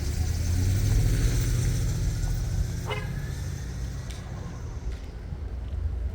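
Metro-North passenger train rolling past on the tracks: a heavy low rumble with wheel and rail noise that fades after about four seconds, with a brief high squeal about three seconds in.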